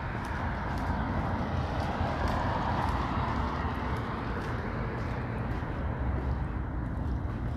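A car passing on a street, its tyre noise swelling and fading about three seconds in, over a low traffic rumble, with footsteps ticking steadily on pavement.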